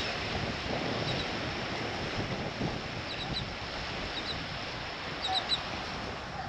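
Steady wash of surf and wind on a beach. Short high bird chirps come in small groups about a second in, around three seconds in, and again near five seconds.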